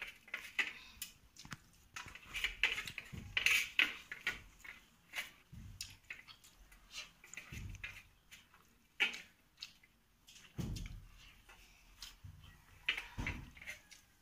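Eating by hand from a steel plate: fingers mixing and scraping rice against the plate, with chewing, heard as irregular small clicks and soft thumps.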